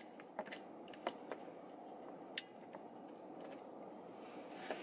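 Faint, steady road and engine noise inside a moving car's cabin, with a few brief sharp clicks.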